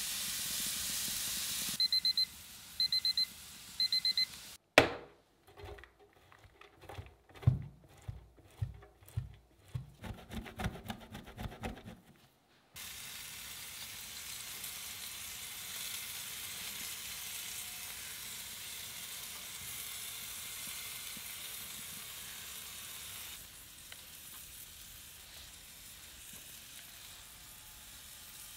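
Meat sizzling on a grill, then a digital probe thermometer beeping in three short bursts: its alarm that the steak has reached temperature. A run of irregular knocks follows for several seconds, then steady sizzling again, softer near the end.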